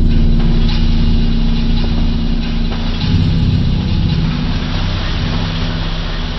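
Background music with held low chords that change about three seconds in.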